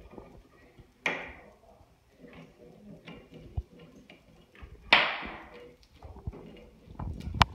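Pet parrots moving about on a cargo net: a few sudden rustling bursts that fade quickly, about a second in and a louder one about five seconds in, among faint ticks, with a sharp click near the end.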